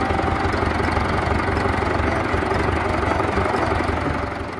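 Diesel engine of a compact wheeled excavator running steadily as it works, a continuous low rumble that eases slightly near the end.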